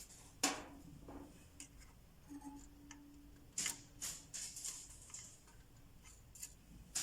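Faint, scattered clicks and light scrapes of hands working small parts (wire, heat-shrink tubing and terminal) inside a dryer motor, with the sharpest click about half a second in.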